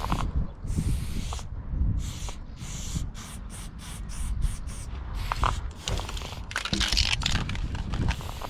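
Aerosol spray-paint can hissing in a string of short bursts, with a longer, stronger spray about seven seconds in, over a low rumble.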